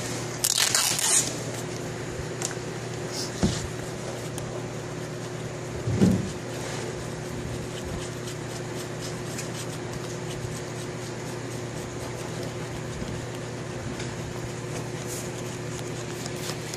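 A paper label being scraped and peeled off a plastic car battery case by hand: a short burst of scraping about half a second in, a fainter scrape a few seconds later and a knock about six seconds in. A steady low hum runs underneath.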